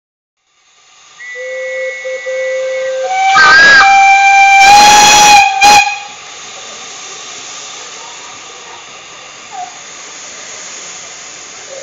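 Miniature steam locomotive whistles: a lower note for about two seconds, then a louder, higher blast for about two and a half seconds that cuts off, followed by a short final toot. After that comes a steady hiss of escaping steam.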